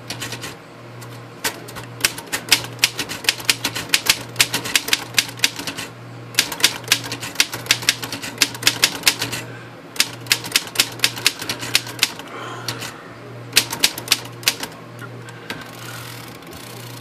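Keystrokes of a 1940 Royal KHM manual typewriter: quick runs of typebars clacking against the platen, several strokes a second, broken by short pauses. Near the end the strokes thin out to a few single clacks.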